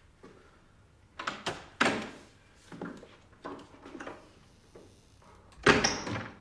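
A door being handled and opened: a run of sharp knocks and latch clicks, then one louder, heavier sudden sound near the end.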